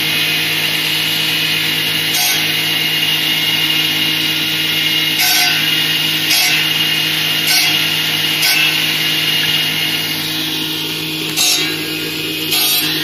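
Electric table circular saw running steadily while branches are pushed through the blade to cut firewood. About seven short cuts rise above the steady motor-and-blade hum.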